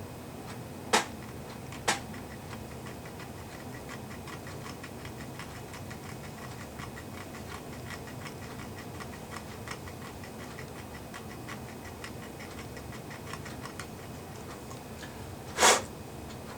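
Quartz wall clock movement ticking lightly and steadily, freshly reassembled after its repair. Two sharp clicks about a second apart come near the start, and a louder knock comes near the end.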